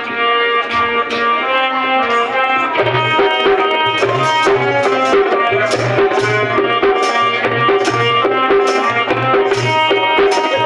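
Indian instrumental accompaniment music: sustained melody notes over a tabla-style hand-drum beat. A low drum stroke comes in about three seconds in and repeats about twice a second.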